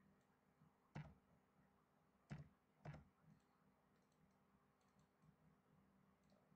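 Three clicks of computer keys, as a number is typed: one about a second in, then two close together a little past the middle, over faint room tone.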